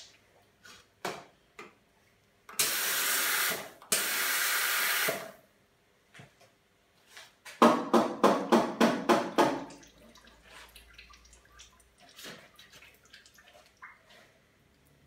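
Steam wand of a Reneka Viva S espresso machine purged in the open: two hisses of steam, each a little over a second long. Then a quick run of about a dozen knocks, the steel milk jug tapped on the counter to settle the foam, and a few faint clicks.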